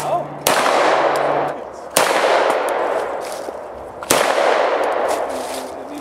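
Pistol firing three single shots about two seconds apart, each sharp report ringing out and fading over a second or more before the next.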